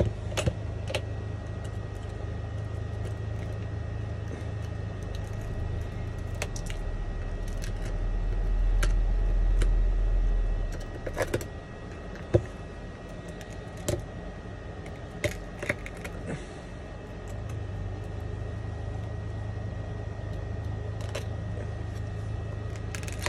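A metal pick and flat blade chipping and scraping the laser-loosened back glass off an iPhone 11 frame, making scattered sharp clicks and ticks as pieces of glass break away. Under it runs a steady low hum that swells for a few seconds in the middle.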